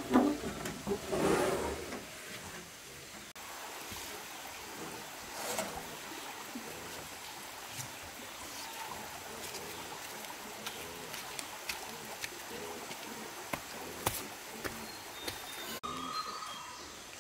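Corrugated concrete roofing sheets scraping and clattering as they are dragged off a trailer bed in the first couple of seconds, then quieter handling with scattered light clicks and knocks, and a short high steady tone near the end.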